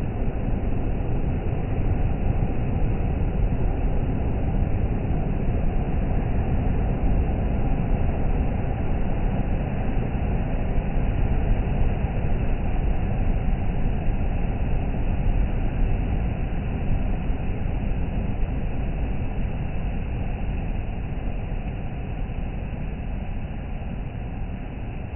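Steady low rumble of sea surf, with no distinct breaking waves standing out, easing slightly near the end.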